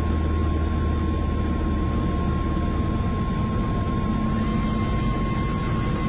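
Ekolot Kr-030 Topaz ultralight's engine and propeller running steadily, heard inside the cockpit along with a steady rush of airflow noise; the low engine hum eases off about halfway through.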